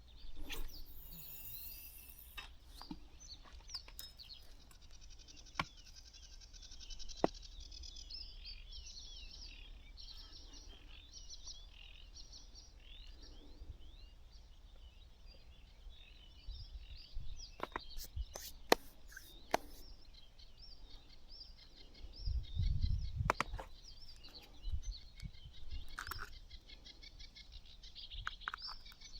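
Several small birds chirping and singing, with many short, quick calls overlapping. A few sharp clicks come in the second half, and a low, muffled thump about two-thirds of the way through.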